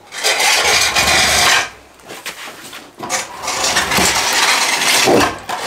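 Marble slab scraping as it is pushed over a rough wooden log, in two long shoves: one of about a second and a half at the start, then a longer one from about three seconds in.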